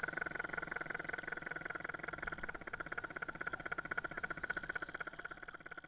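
Engine of a radio-controlled scale model fishing boat, running at a steady, fast, even chug.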